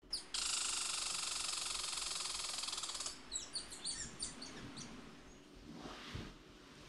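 Birds calling: a dense, high buzzing trill for about three seconds that stops abruptly, followed by a quick run of sharp, falling chirps.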